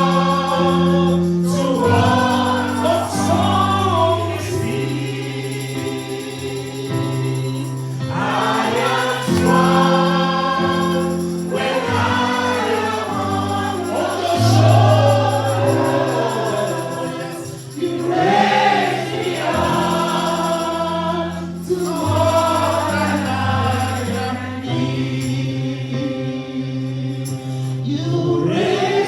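Gospel choir singing over sustained keyboard chords that change every few seconds, in phrases a few seconds long.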